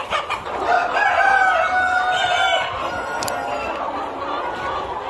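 A large flock of native country chickens clucking and calling, with a rooster crowing about a second in, one long crow that is the loudest sound.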